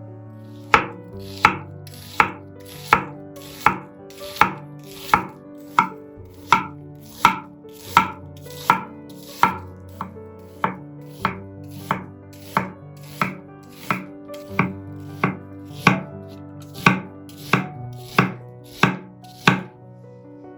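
Kitchen knife chopping on a cutting board in a slow, even rhythm, a little under one and a half strokes a second, with quiet background music underneath.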